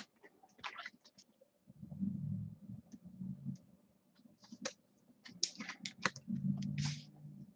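Trading cards and a hard plastic card holder being handled: scattered small clicks, taps and light scrapes of card stock and plastic, with two brief low rumbles, about two seconds in and near the end.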